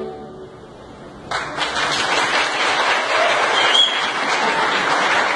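The last chord of a saxophone ensemble dies away into a brief hush, then an audience breaks into applause about a second and a half in and keeps clapping steadily.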